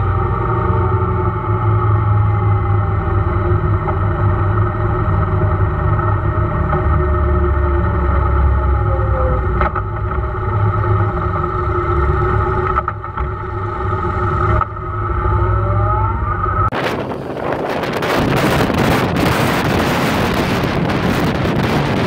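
Motorcycle engine running under way, heard from a camera on the bike, its pitch falling as it slows and rising again as it accelerates. About seventeen seconds in it cuts off abruptly to loud wind rushing over the microphone.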